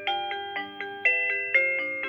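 AVANTEK wireless doorbell receiver playing its electronic chime ringtone: a quick melody of bell-like notes, about four a second, with the last note ringing out near the end.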